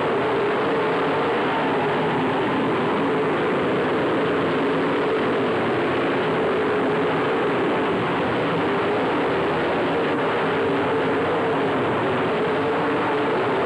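Several dirt-track race car engines running around the oval together, a steady loud drone whose pitch rises and falls slightly as the cars circle.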